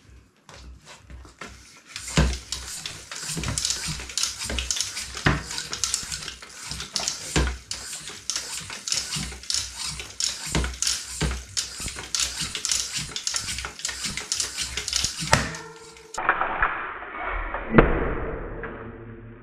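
Floor pump inflating a mountain-bike tyre: repeated pump strokes, each a rush of air with a low thump, running for about fourteen seconds. After that the sound goes duller, with one sharp click near the end.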